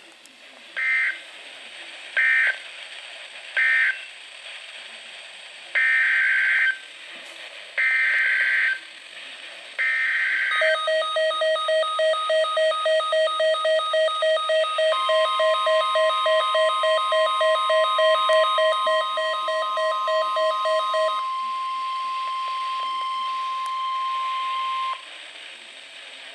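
NOAA Weather Radio SAME data bursts: three short end-of-message bursts, then three longer header bursts announcing the next warning. Then a weather alert receiver's beep alarm pulses rapidly for about ten seconds. From about 15 s in it overlaps the broadcast's steady 1050 Hz warning alarm tone, which holds for about ten seconds and cuts off.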